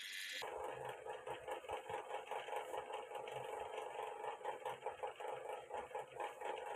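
A steady mechanical hum with a rapid pulsing flutter, like a small motor running, starting abruptly about half a second in.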